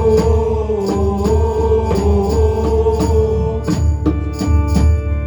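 A live band playing a slow, droning piece: a long held note sits over a steady beat of drum and cymbal hits about twice a second, with a pulsing bass underneath.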